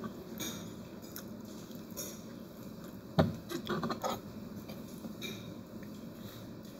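A metal spoon clicking and scraping against a plate in scattered light knocks, the sharpest about halfway through.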